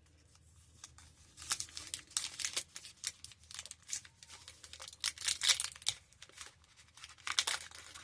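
A trading card pack wrapper being torn open by hand: irregular crackling rips and crinkles that start about a second in, with the loudest tearing about halfway through and again near the end.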